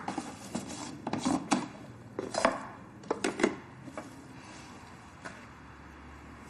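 Bowls, spoons and lunch containers clinking and knocking as soup is served, with a scatter of short sharp clinks over the first three and a half seconds, then only one faint click.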